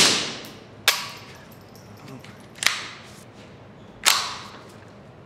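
Four suppressed shots from a Ruger 10/22 Takedown with its factory integrally suppressed barrel, a .22 LR rifle, fired at an uneven pace. Each report is quiet for a gunshot and rings off the walls of an indoor concrete range.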